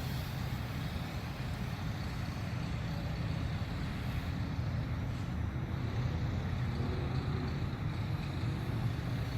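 Parrot Anafi quadcopter flying close by, its propellers giving a steady low hum.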